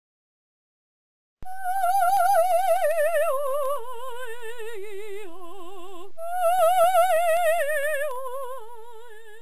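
Female voice singing a wordless, operatic-style line with wide vibrato, starting about a second and a half in. Two phrases each begin high and step down in pitch, with a short break in between.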